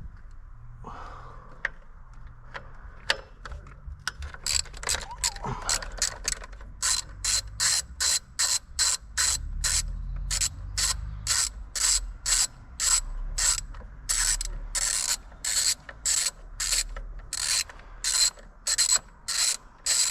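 Hand socket ratchet worked back and forth on a bolt, its pawl clicking in a short run on each backstroke, about two strokes a second, starting about four seconds in.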